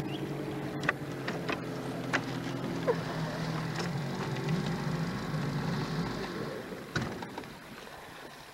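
Small outboard motor running at low throttle, its pitch wavering a little, with a few sharp clicks and knocks; it grows quieter near the end.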